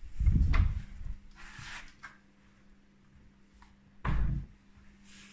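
Heavy thumps and knocks of a person climbing up onto a wooden kitchen worktop: a loud bump right at the start and another about four seconds in, with a faint steady hum between them.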